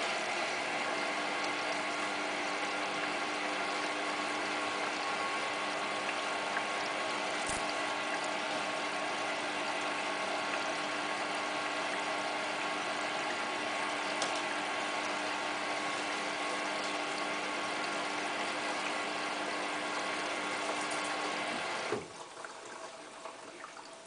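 Hotpoint Ultima WT960 washing machine taking in water through its inlet valve and soap drawer at the start of the wash: a steady rushing hiss with several steady tones in it, which cuts off suddenly near the end.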